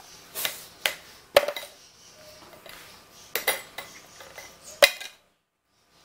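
Parrot toys knocking and clinking against a clear plastic toy basket as an Indian ringneck parakeet picks them up and drops them: a handful of sharp separate clacks, the loudest about a second and a half in. The sound cuts off suddenly near the end.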